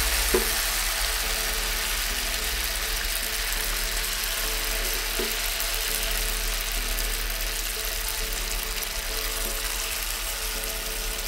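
Batter-coated cauliflower florets deep-frying in hot oil: a steady sizzle and bubbling with no letup.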